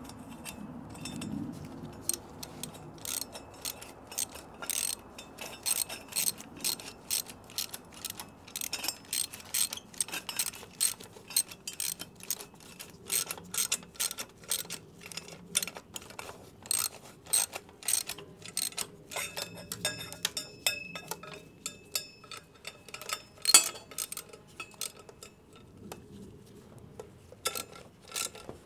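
Hand ratchet wrench clicking in quick, irregular runs as fasteners on motorcycle exhaust header pipes are turned. One much louder knock comes a little before the end.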